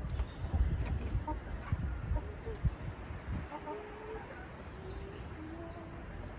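Domestic hens clucking, short low calls that come mostly in the second half, over low knocks and handling noise in the first few seconds.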